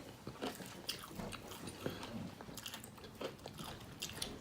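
A person chewing and biting food close to the microphone: soft, irregular little clicks and crunches of mouth sounds.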